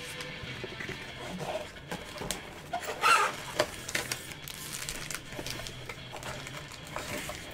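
Foil trading-card packs and a cardboard card box being handled: crinkling, rustling and light taps, loudest about three seconds in.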